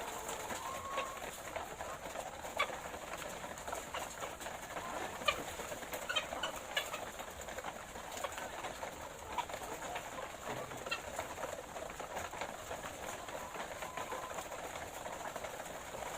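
A flock of laying hens clucking and murmuring in a steady, busy chatter, with scattered sharp clicks.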